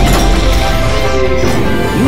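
Cartoon background music, with a quick falling glide sound effect at the start.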